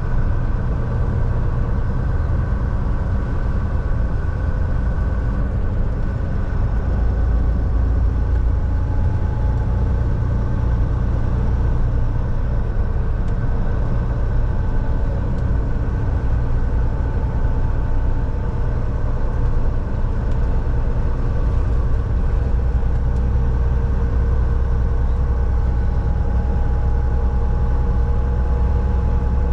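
Volvo semi truck on the road: steady low engine drone and road noise. The drone shifts slightly in pitch about seven seconds in and again near twenty-two seconds.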